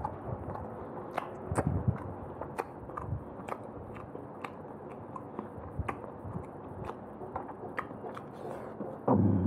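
Close-miked chewing and lip-smacking of roast chicken and rice, with irregular sharp wet clicks from the mouth. A brief, louder vocal sound comes near the end.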